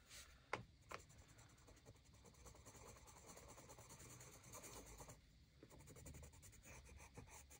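Faint, rapid scratching of a Brutfuner white colored pencil rubbed back and forth over a red swatch on sketchbook paper, with two light taps of the pencil near the start.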